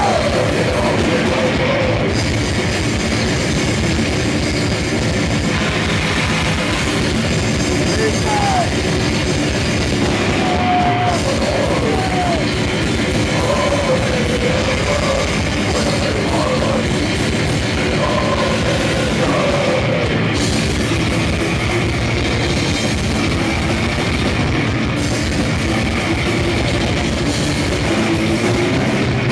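Grindcore band playing live at full volume: distorted electric guitar, bass guitar and drum kit in a loud, dense wall of sound.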